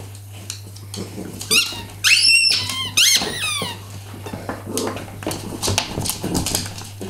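Dogs' squeaky toys squeaking as they chew them: several high squeals, bunched between about one and a half and three and a half seconds in, with light clicks around them.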